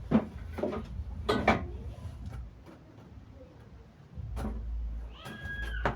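A package being handled and opened by hand: a few sharp clicks and knocks in the first second and a half, then rubbing and scraping with a brief squeak near the end.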